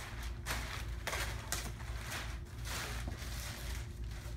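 Thin clear plastic wrap rustling and crinkling in several bursts as it is pulled back and cut off a mattress, over a low steady hum.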